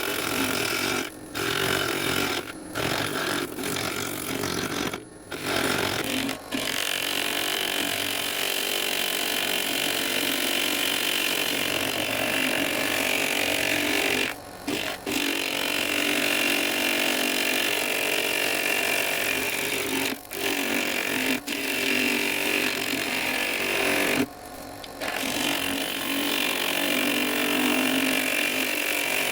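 Wood lathe spinning a driftwood-and-resin blank while a turning tool cuts it, a steady scraping rush with several brief breaks where the tool comes off the work.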